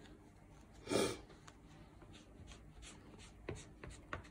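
Hands rubbing and handling paper on a journal page, with one short, louder rustle about a second in and a few light taps near the end.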